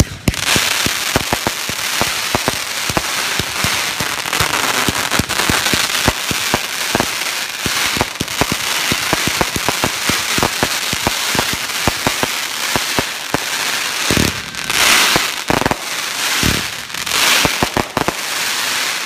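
Consumer fireworks cake ("Titan") firing shot after shot: a continuous hiss of launches thick with crackling and popping. It starts abruptly, with louder rushes of hiss about 14 and 17 seconds in.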